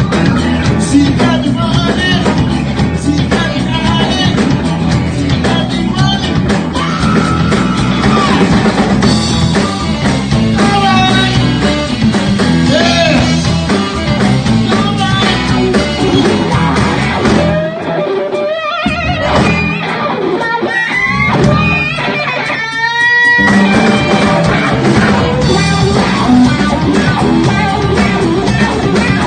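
Live rock band playing during a sound check: guitar and drum kit with a singing voice. For a few seconds past the middle the bass and drums drop out, leaving the higher parts alone, before the full band comes back in.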